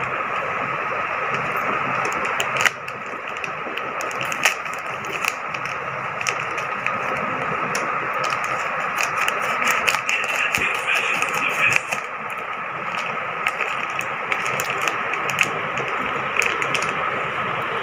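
Plastic courier mailer bag crinkling and tearing as it is opened by hand: irregular crackles and clicks over a steady background hiss with a faint steady hum.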